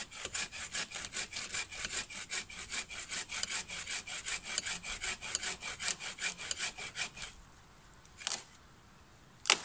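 A collapsible all-metal buck saw cutting through a dead fallen tree trunk with fast, even strokes, about five a second, which stop about seven seconds in. A single sharp knock follows near the end, the loudest sound of all.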